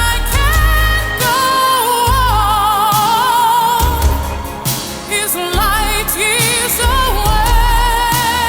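A woman singing long held notes with wide vibrato in a 1980s pop power ballad, over a full band backing with heavy bass and drums.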